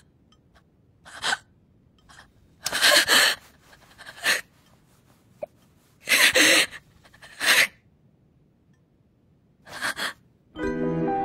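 A woman's sobbing: about six sharp, gasping breaths at uneven intervals, with quiet between them. Music comes in near the end.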